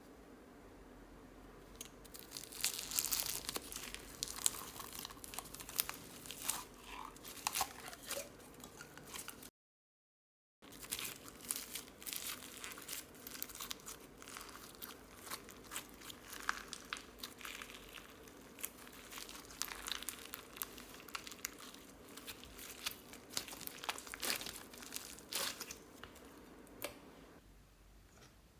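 Slime being squished and kneaded by hand: a dense run of sticky crackling and popping clicks that starts about two seconds in and stops shortly before the end. The sound cuts out completely for about a second around the middle.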